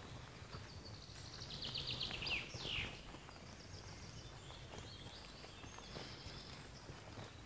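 A songbird singing: a rapid trill about two seconds in that ends in a quick falling note, the loudest sound here, then fainter high trills, over a low steady rumble.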